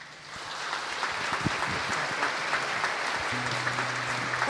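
Congregation applauding, building up over the first second and then steady. Near the end a low held instrument note comes in under the clapping as music begins.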